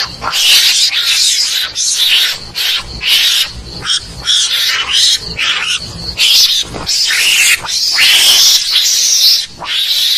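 Javan mongoose calls, played as a hunting lure: loud, raspy, hissing screeches in quick succession, broken by short pauses.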